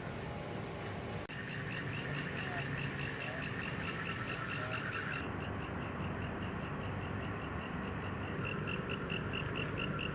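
Night insects, crickets, chirping in a steady rhythm. A loud, close one pulses about four times a second from about a second in and stops about five seconds in, while fainter, faster trilling from other insects carries on.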